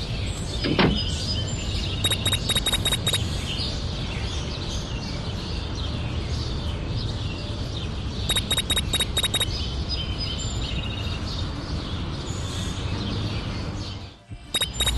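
Birds chirping: a short run of quick, high chirps that comes back about every six seconds, over a steady background hiss and rumble.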